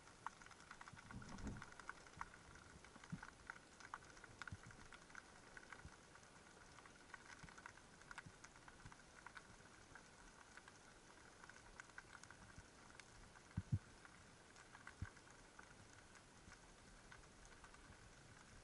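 Faint underwater crackle: a steady scatter of many tiny clicks. A few short, low knocks stand out, one about a second and a half in and a louder pair about three-quarters of the way through.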